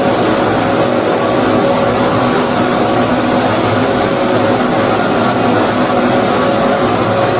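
Steady white noise for lulling a baby to sleep: an unchanging hiss with a faint hum running through it.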